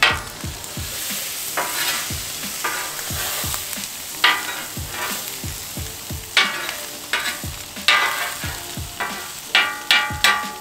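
Metal spatula scraping across the steel top of a Pit Boss four-burner griddle, pushing chopped carne asada aside and scraping the cooking surface clean, over a steady sizzle of meat and grease. The scrapes come in short, irregular strokes, quicker near the end.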